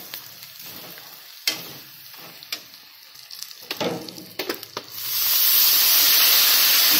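Onion-and-spice masala frying in oil in a kadai, a steel spatula scraping and clicking against the pan as it is stirred. About five seconds in, the sizzle swells into a loud, steady hiss and holds.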